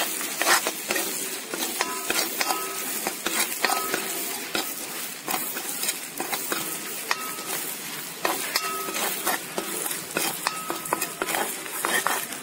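Crushed ginger and garlic sizzling in hot oil in a metal kadai, stirred steadily with a steel ladle that scrapes and clinks against the pan again and again.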